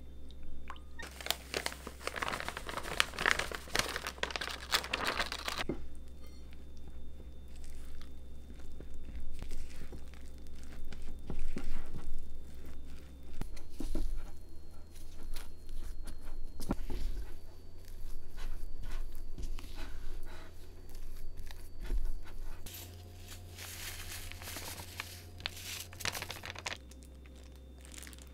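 Silicone spatula stirring and scraping sticky hotteok dough in a glass mixing bowl, with scattered knocks against the bowl. Two stretches of plastic crinkling, one about a second in and one near the end, over a steady low hum.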